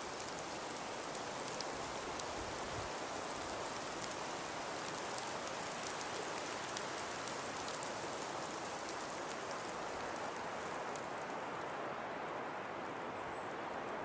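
Steady hiss of a heavy snowstorm with many light scattered ticks of precipitation striking surfaces. About twelve seconds in, the high hiss and the ticks fall away.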